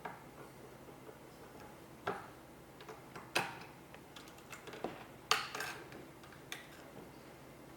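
Scattered light clicks and taps of computer hardware being handled and fitted during assembly, with the sharpest knocks about three and a half and five and a half seconds in.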